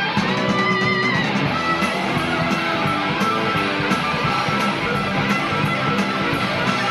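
Rock music with electric guitar: steady, held guitar notes changing pitch in steps over a regular beat.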